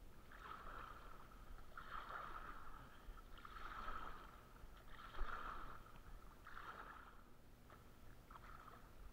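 Wooden hand paddles stroking and splashing through lake water, about one stroke every second and a half, with a single knock about five seconds in and lighter splashing near the end.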